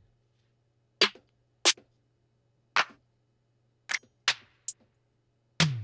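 Single drum-machine hits from a Ujam drum plugin played one at a time from Maschine's pads: about seven short, sharp strikes at uneven spacing, each dying away quickly, the last near the end a deep kick that falls in pitch. A faint steady low hum lies underneath.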